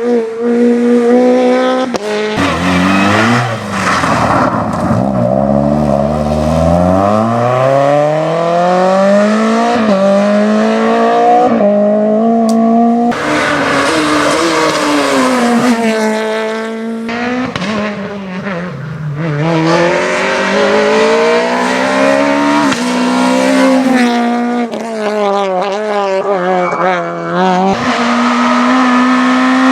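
Rally car engine accelerating hard, its revs climbing again and again and dropping at each gear change or lift.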